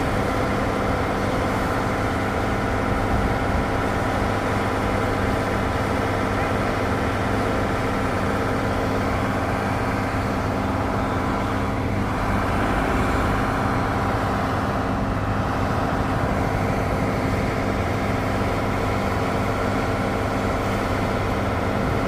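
A large vehicle's engine idling steadily, a constant even drone with no changes in speed.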